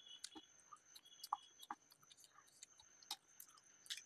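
Faint mouth sounds of eating pav bhaji by hand: scattered sharp wet clicks and smacks of chewing and lips, about a dozen in four seconds, over a faint steady high-pitched whine.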